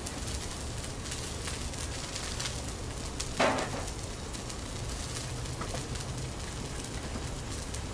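Asparagus, green beans and scallions sizzling steadily in oil on a hot flat-top griddle, with the light scrape and clink of a whisk stirring batter in a plastic bowl.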